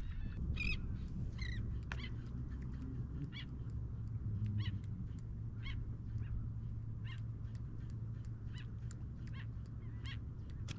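Birds calling in many short, repeated notes over a steady low rumble.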